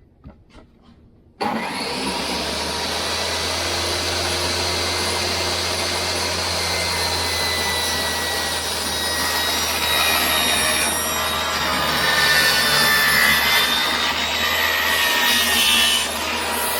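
Power saw starting up abruptly about a second and a half in and running steadily through a long cut in a wood board, a little louder through the middle and latter part of the cut.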